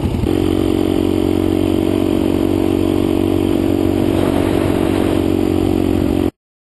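Dual-sport motorcycle engine heard from the bike itself: an uneven idle for a moment, then a sudden change to steady running at cruising speed on the road. It cuts off abruptly near the end.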